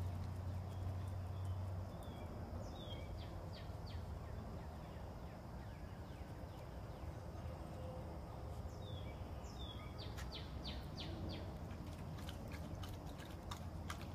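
Outdoor ambience: a steady low rumble under small bird chirps, heard about three seconds in and again near ten seconds, with a run of quick ticks in the last few seconds.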